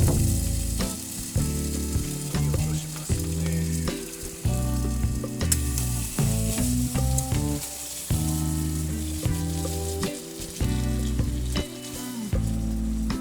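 Background music with sustained low notes and chords changing every second or so, over a steady high crackling hiss.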